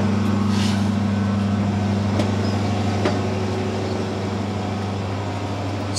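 Large 30-litre Perkins diesel engine driving a 300 kW generator, running steadily: a constant low drone, with a couple of faint clicks about two and three seconds in.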